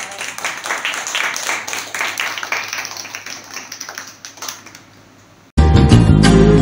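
A few people clapping their hands, the claps thinning and fading out after about four seconds. Loud music starts abruptly about a second before the end.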